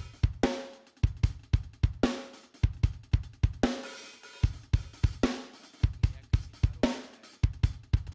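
Multitrack drum kit recording played back dry, without reverb: kick, snare, hi-hat and cymbals in a steady groove, with the snare landing about once a second.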